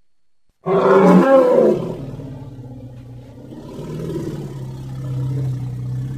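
Straight-tusked elephant (Palaeoloxodon antiquus) call sound effect. A loud call starts suddenly just under a second in and lasts about a second, then falls to a lower, steady call that swells again toward the end.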